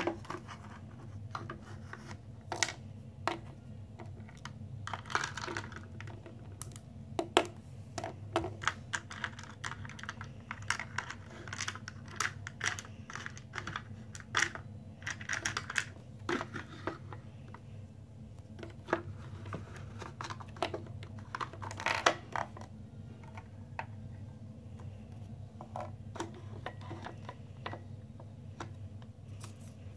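Small plastic toys and accessories being handled and set down on a wooden tabletop: scattered clicks, taps and light clattering, with a few brief rustling scrapes, over a steady low hum.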